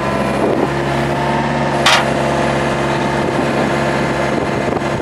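Vehicle engine idling steadily, with a single sharp knock about two seconds in.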